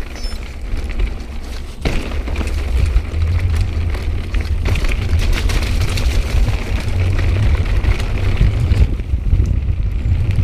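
Calibre Bossnut mountain bike rolling fast down a rocky, loose-stone track: tyres hissing over gravel and the bike rattling with many small clicks and knocks, under a heavy low rumble of wind on the camera's microphone. A sharp knock comes about two seconds in, and it gets louder after that.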